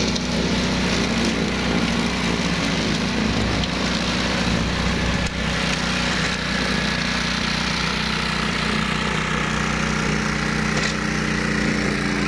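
Engine of a homemade ride-on flail mower running steadily at an even speed.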